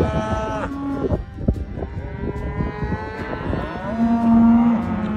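A herd of cattle bawling, several overlapping long moos from different animals at different pitches, with a few sharp clicks among them.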